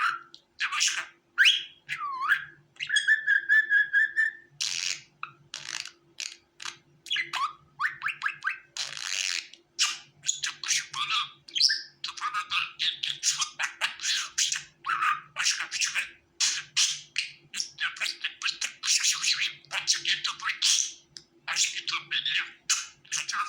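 Budgerigar chattering and warbling: a rapid run of short chirps and squawky calls, with one held whistle about three seconds in.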